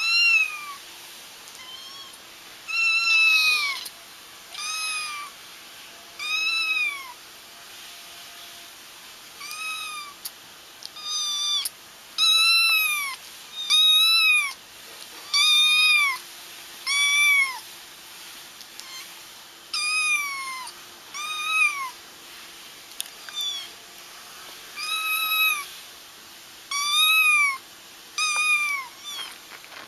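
High-pitched kitten meows, repeated about once every second or so, each call rising then falling in pitch.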